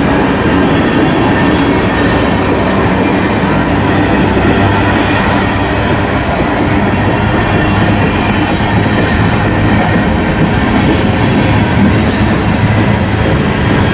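A train rolling past on the main line: steady, unbroken noise of wheels on the rails.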